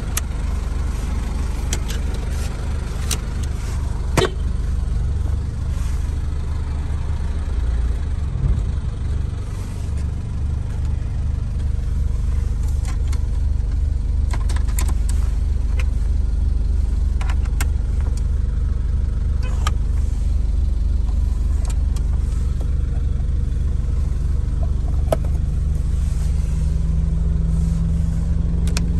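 Nissan QD32ETI 3.2-litre four-cylinder turbo diesel idling steadily, heard from inside the cabin as a low hum. Occasional sharp clicks of dash switches and plastic trim being handled.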